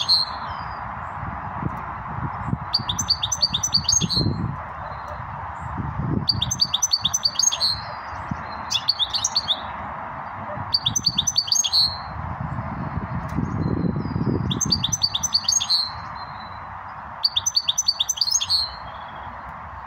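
Caged goldfinch singing: short bursts of rapid, twittering trills, about nine phrases repeated every two seconds or so, over a steady background hum.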